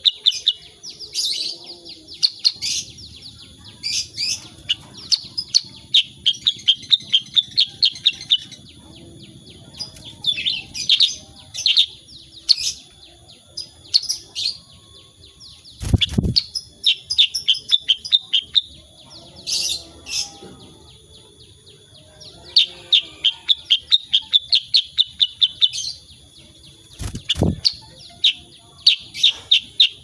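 Black-headed bulbul singing: bursts of rapid, high chirping phrases, repeated with short pauses. Two sharp thumps, one about halfway through and one near the end.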